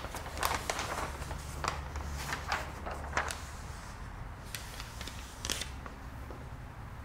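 Large flip-chart paper sheets being turned over, rustling and crackling in a quick run of sharp paper noises over the first three seconds, with a couple of lighter rustles later. A low steady room hum runs underneath.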